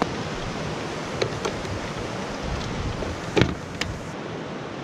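Steady rush of a whitewater mountain creek, with a few light clicks and knocks from handling a fly rod in a roof-mounted rod carrier, the sharpest about three and a half seconds in.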